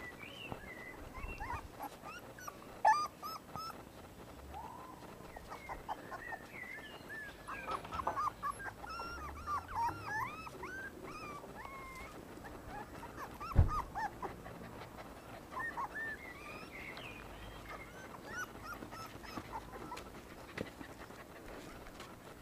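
Young puppies whimpering and yipping in short, high calls that rise and fall in pitch, busiest about eight to eleven seconds in. A single sharp knock comes about thirteen and a half seconds in.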